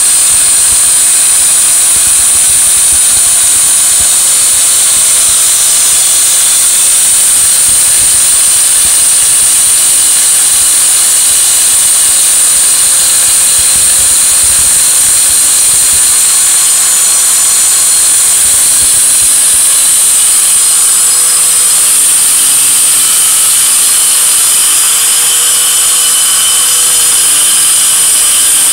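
Handheld electric marble and tile cutter with a stone-cutting blade running under load as it cuts a long straight line through a stone slab, water fed onto the blade. A steady, loud, high-pitched whine with no breaks.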